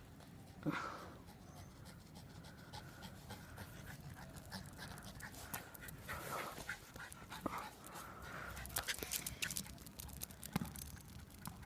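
Dog panting, with scattered light clicks and one short, sharp sound just under a second in.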